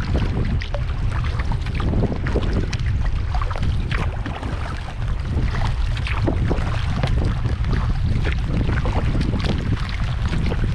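Rain falling on the lake and the kayak, with many scattered drop impacts, over a steady rumble of wind buffeting the microphone.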